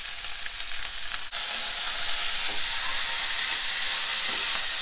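Shredded cabbage, capsicum and onion sizzling in hot oil in a kadai, stirred with a spatula, with small ticks and spatters in the hiss. The sizzle gets suddenly louder about a second in and then holds steady.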